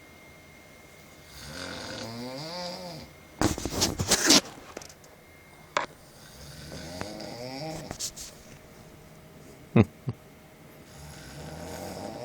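A woman snoring in her sleep: three long snores a few seconds apart, each a rasp whose pitch wavers. A loud, harsh burst of noise follows right after the first, and two sharp clicks come between the second and third.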